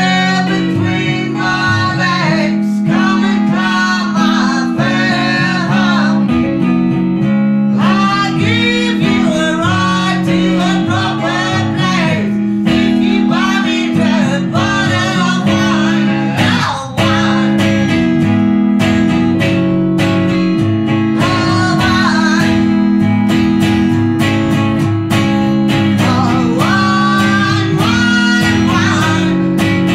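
Blues song with strummed acoustic guitar under a man's and a woman's singing voices. The music dips for a moment about halfway through.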